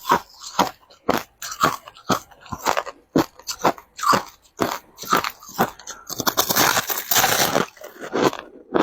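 Crushed ice being chewed, with a sharp crunch roughly every half second. About six seconds in comes a longer, denser run of crunching as the ice is ground between the teeth.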